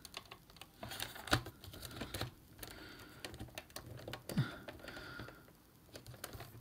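Irregular small plastic clicks and taps from a plastic action figure being handled and its boots pressed onto a plastic display base, with one sharper click about a second and a half in.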